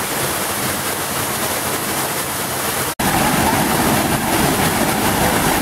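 Steady rush of falling water at a small waterfall. A sudden cut about halfway through, after which the rush is louder and fuller as the cascade plunges into a churning pool.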